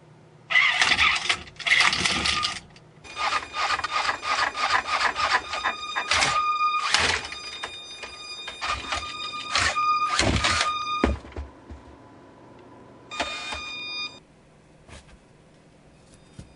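Small servo-driven gymnast robots performing on rings, horizontal bar and floor: servo motors whining in bursts while the robots' frames and the apparatus rattle and clatter, with a last short burst near the end.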